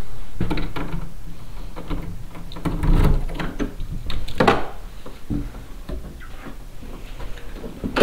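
Scattered knocks and clicks of doors, drawers or fittings being handled, the loudest about three seconds and four and a half seconds in, over a steady low hum.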